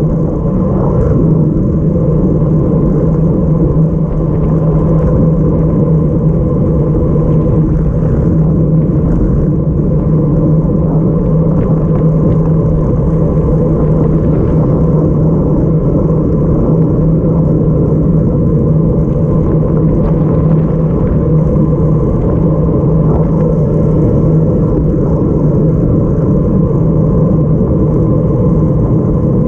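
Steady, loud, low rumble of wind buffeting the microphone of a camera riding along on a road bicycle, mixed with the hum of the tyres on the road.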